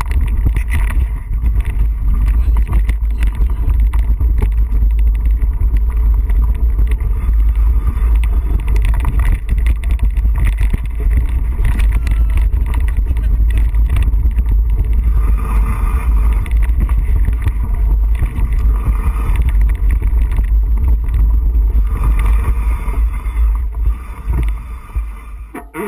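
Heavy wind buffeting and rumble on an action camera carried by a mountain biker riding a rocky trail, with constant knocks and rattles from the bike jolting over stones; it dies down and turns uneven near the end.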